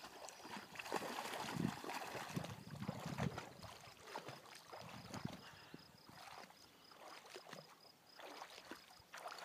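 Light, irregular splashing and sloshing of water as a Scottish Terrier paddles in shallow water, busier in the first few seconds and fainter after.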